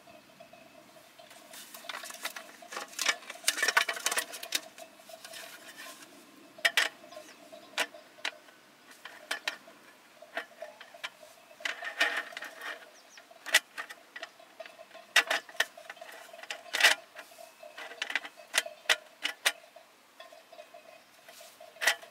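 Folding aluminium camp table being set up: the collapsible metal frame and slatted roll-up top click, clack and rattle in irregular bursts.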